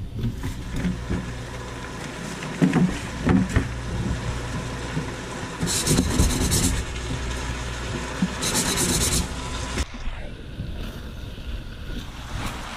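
A spatula scraping and knocking against a wok as vegetables and bean sprouts are stirred, with two short bursts of hiss about six and nine seconds in, over a steady low hum.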